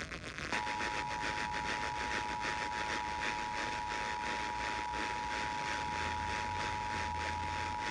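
Emergency Alert System attention signal, two tones near 853 and 960 Hz sounding together, heard over an FM radio broadcast. It starts about half a second in and holds steady without a break, marking the start of a Required Monthly Test just before the spoken message.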